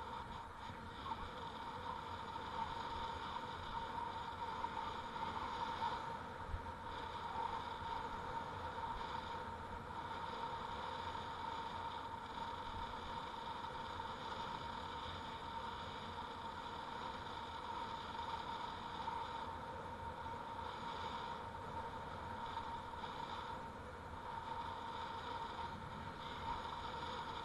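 Bicycle riding along an asphalt street: steady rolling tyre and road noise with a thin constant whine and a few faint knocks from bumps in the road.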